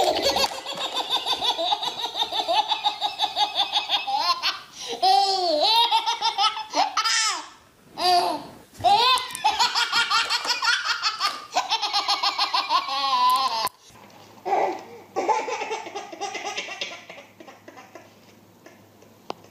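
A baby belly-laughing hard in long runs of quick, high-pitched giggles, breaking off briefly and starting again several times. Near the end it changes suddenly to quieter, sparser laughter.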